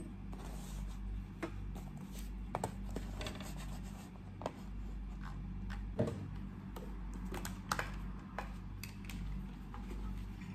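Irregular light clicks, taps and scratches, as of hands handling small objects, over a low steady hum.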